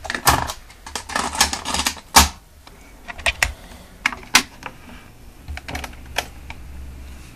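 Timex Sinclair 2020 cassette recorder's mechanical piano-key buttons being pressed, a series of sharp clicks and clunks, with a cable plug being pushed into a jack partway through.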